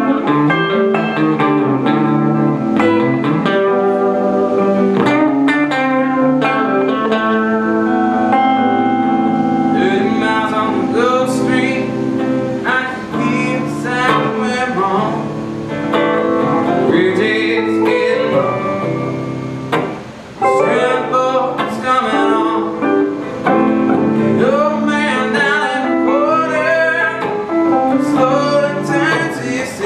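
Live duo of two electric guitars played through amplifiers, with a man singing over them. The music dips briefly about twenty seconds in.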